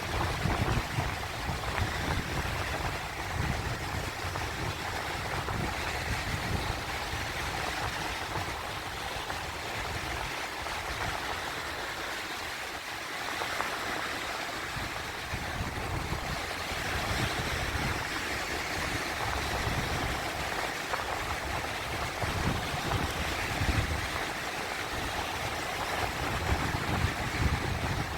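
Sea waves washing and churning in a steady rush of water, with low rumbling surges that swell and ease every few seconds.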